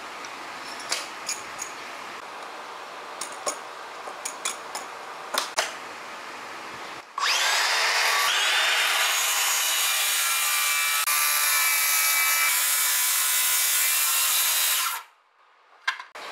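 Handheld circular saw cutting through a wooden board. The loud whining cut runs about eight seconds, then stops abruptly. Before it come a few sharp knocks and clicks of wood and tool being handled.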